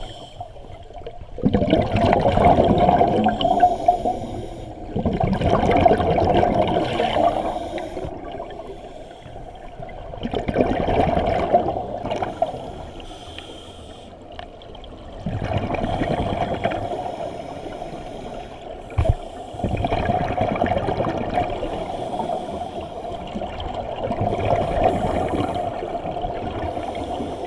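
Scuba diver's exhaled air bubbling out of the regulator underwater, muffled through the camera's underwater housing. It comes in about five bubbling bursts, one per breath, with quieter gaps between, and one sharp knock about two-thirds of the way in.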